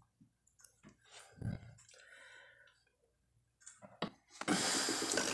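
Quiet eating and handling sounds: scattered faint clicks and small mouth sounds, then a click and about a second of noisy rustling near the end as an object is handled.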